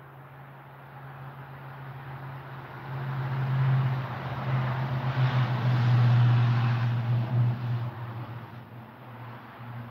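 A motor vehicle's engine running, with a broad road noise that builds to its loudest about five to seven seconds in, then fades.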